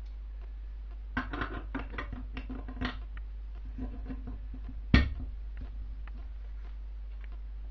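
Steel gear-shift parts clicking and clinking against each other and the aluminium crankcase of an NSU Max 250 gearbox as they are fitted by hand: a quick run of light clicks, a few more after a pause, then one sharper knock about five seconds in.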